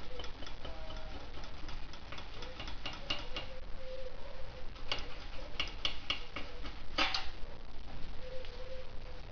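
Hand tools clicking and tapping on metal at an irregular pace, a few clicks at a time with the densest run about five to seven seconds in, during work on a motorcycle's exhaust. A low steady rumble runs underneath.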